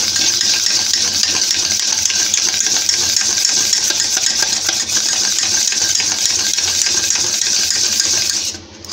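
Wire whisk beating soft butter by hand in a stainless steel bowl: steady, rapid scraping and ticking of the wires against the metal, with a brief pause near the end.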